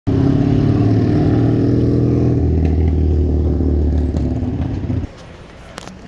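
A motor vehicle's engine running steadily and loudly, its low note dropping a little about halfway through. It cuts off abruptly about five seconds in, leaving faint room hum with a couple of clicks.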